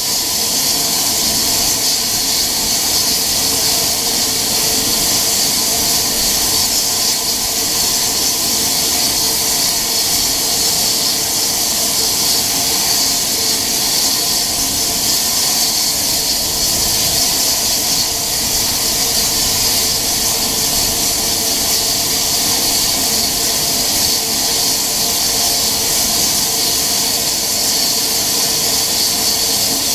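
Steam hissing loudly and steadily from the standing BR Standard Class 9F 2-10-0 steam locomotive 92203, a strong high hiss with faint steady whistling tones running through it.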